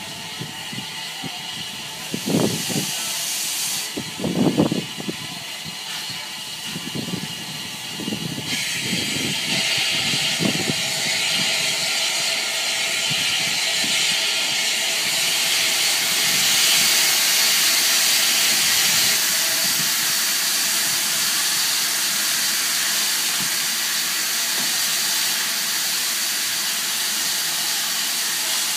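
Bulleid Battle of Britain class steam locomotive standing at rest, with steam hissing loudly and steadily from about eight seconds in. Before that there are a few brief low rumbles.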